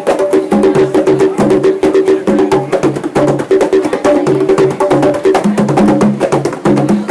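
Drummers playing a fast, driving groove: rapid, crisp strikes over a pattern of repeating low pitched drum notes.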